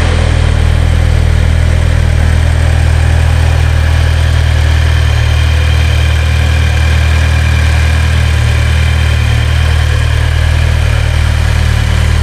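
2007 Audi A4 2.0T's turbocharged four-cylinder engine idling steadily, running with a newly replaced oil pump.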